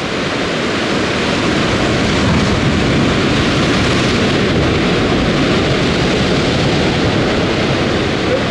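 Sea surf breaking and washing against volcanic shore rocks: a loud, continuous rush of water that swells a little a couple of seconds in.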